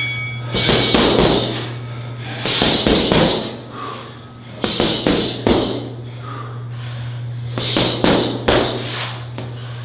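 Punches and kicks landing on a heavy bag in quick combinations of two to four strikes, with short pauses between, over background music.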